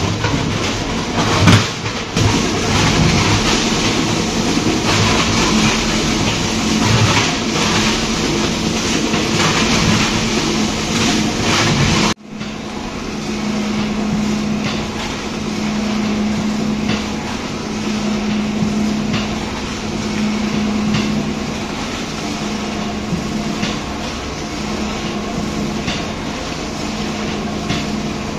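Brick-making pan mixer running, its metal rollers and scraper arms churning a grey fly ash and cement mix, a loud, dense rattling noise with many sharp clicks. About twelve seconds in it cuts abruptly to a smoother run with a steady motor hum underneath.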